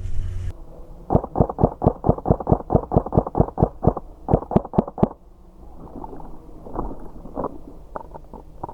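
A rapid, even run of sharp clicks, about five or six a second, lasting about four seconds, followed by fainter scattered clicks.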